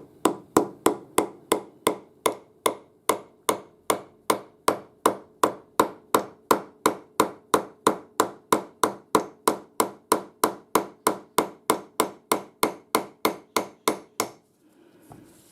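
Hammer tapping a steel pin home through a lathe tool slide's handle: a steady run of sharp metal-on-metal taps, about three a second, each with a brief ring, stopping near the end once the pin is in.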